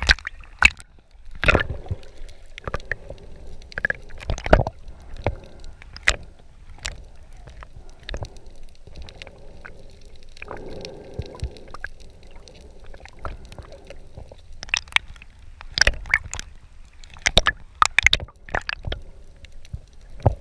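Water sloshing and gurgling around a camera at and just below the sea surface, muffled, with many sharp clicks and knocks scattered throughout and coming thicker near the end.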